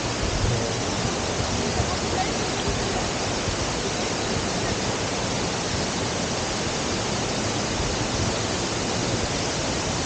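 Steady rushing of the waterfall and its rocky stream, an even hiss of falling and running water. Faint voices are heard briefly under it.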